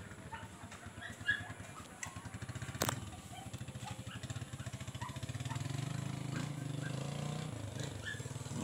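Small motorcycle engine running with a fast, steady putter that grows a little louder after about five seconds. A single sharp click near the three-second mark.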